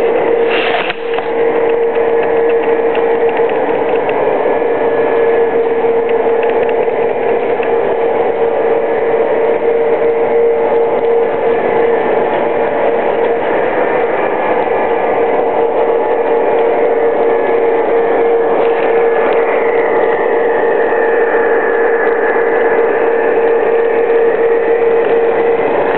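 A Lionel Legacy New York Central F7 diesel set with passenger cars running on three-rail O-gauge track: wheels rolling on the rails over a steady hum. About two-thirds of the way in, a higher whine slides down and levels off.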